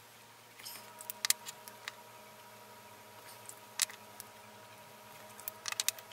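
Light, sharp clicks and taps of small objects being handled, in three brief clusters, over a faint steady hum.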